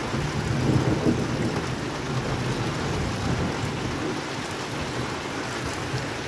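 Heavy rain, with water gushing from the end of a roof gutter and splashing onto the ground, a steady rushing that is a little heavier in the first second or so.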